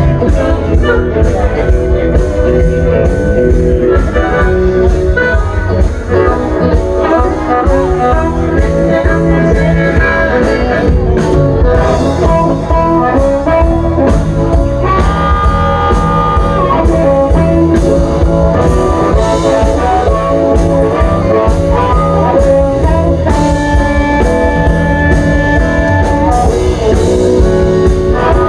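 Live blues band playing an instrumental break between verses: electric guitar over bass and drum kit, with strong steady bass.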